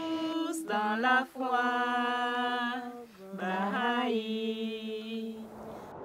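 A solo voice singing long held notes without words, two sustained notes of about two seconds each with a short break between them.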